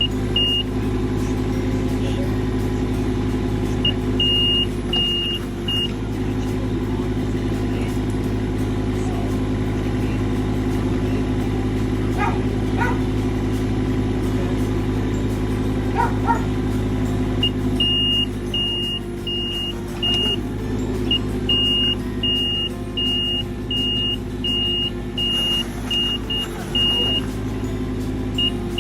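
Excavator engine running steadily, with a high warning beeper sounding in short repeated beeps, about one and a half a second, for a couple of seconds early and again over most of the last third.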